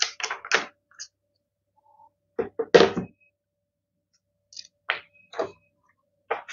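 Paper pages of a thick hardcover textbook being turned by hand: a series of short paper swishes and flaps, the loudest cluster about three seconds in.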